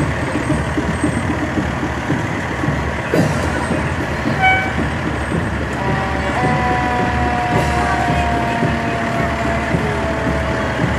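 Parade vehicles passing with a steady engine rumble. A short horn toot comes about four and a half seconds in, and a long tone slowly falls in pitch through the second half.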